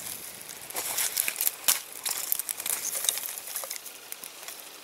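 Small dry branches being laid onto a young campfire, rustling and snapping as they go down, with the fire crackling. A few sharp cracks come in the first two seconds, then the crackling grows quieter.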